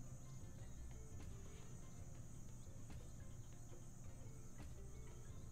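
Faint slot-game audio: a steady cricket-like chirring ambience over a low hum, with light ticks about once a second as the reels spin and stop.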